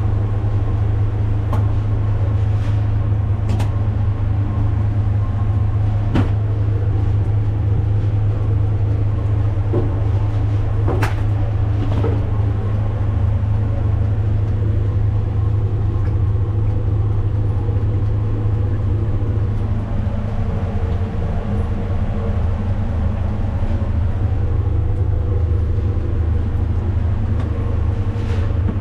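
A steady, loud low mechanical hum, with a few faint clicks.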